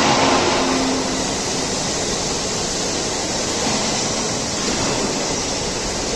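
Liugong 913 excavator running steadily, heard as a dense, even mechanical noise with a faint steady hum in the first second.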